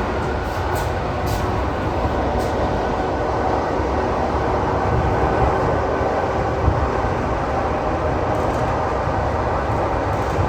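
ED4M electric multiple unit running steadily on the rail, a continuous rumble of motors and wheels heard from on board, with a few faint ticks in the first couple of seconds.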